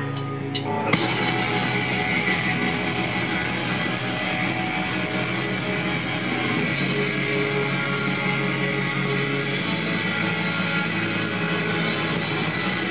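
Live black metal band playing through a club PA: sustained guitar chords ring alone, then about a second in the full band crashes in with distorted guitars, bass and drums in a dense, steady wall of sound.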